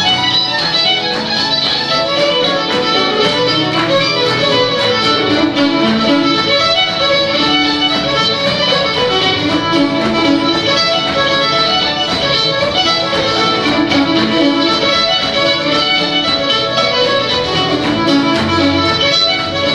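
Live fiddle tune in quick running notes, with acoustic guitar accompaniment and keyboard backing.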